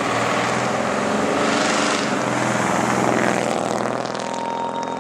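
1949 Chevy pickup's 350 small-block V8 driving past, its engine and exhaust loudest about two seconds in as it goes by, then easing off as it pulls away.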